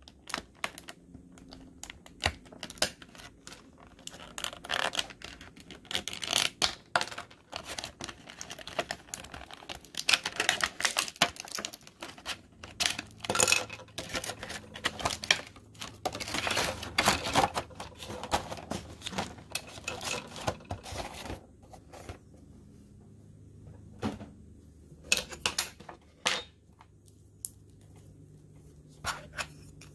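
Thin clear plastic bags crinkling and rustling in the hands, with irregular small clicks and taps of hard plastic action-figure parts. It is busiest in the middle and thins out to occasional clicks near the end.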